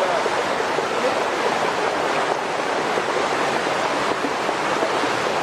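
Floodwater rushing along a road in a loud, steady torrent.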